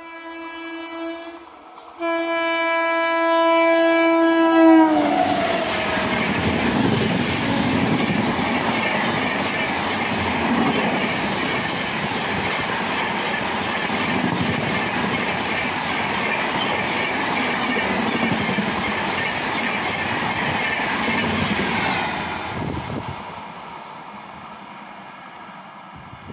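Electric locomotive horn sounding: a fainter blast, then a loud one of about three seconds that drops in pitch as the locomotive passes at about 130 km/h. The red LHB-type coaches follow with a steady rushing rumble and wheel clatter, fading away near the end.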